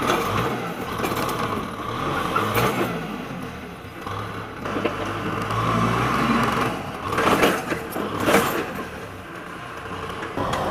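Kubota diesel tractor engine running steadily under load as its front blade pushes soil. Two short, sharp noises stand out about two-thirds of the way in.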